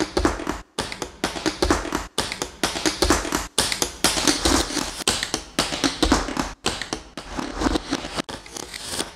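Glitchy techno-industrial electronic track: a dense stream of clicking, tapping percussive noise over a deep bass hit about every second and a half, broken by abrupt split-second cut-outs to silence.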